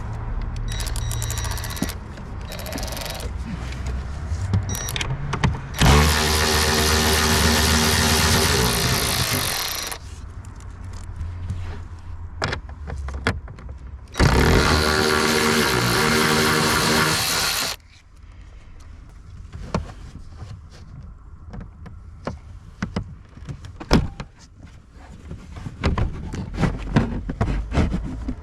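Cordless drill or power screwdriver running in two bursts of about four and three and a half seconds, its motor whine rising as it spins up each time. Scattered clicks and knocks of handling come in between.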